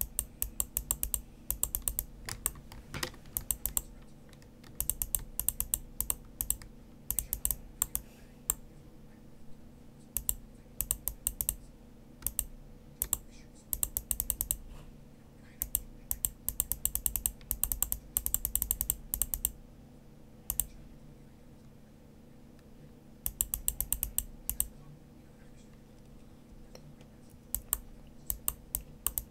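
Typing on a computer keyboard: flurries of rapid keystrokes broken by short pauses, with a faint steady hum underneath.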